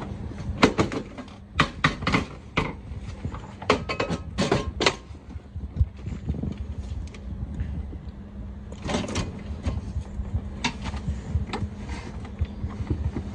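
Clanks and knocks of a manual wheelchair's metal frame and wheels bumping against the truck cab as the chair is hauled across the driver's lap and into the cab. The knocks come in scattered groups over a steady low hum.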